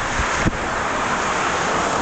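Strong wind gusting across the camera microphone: a steady rush with low buffeting thumps, the sharpest about half a second in.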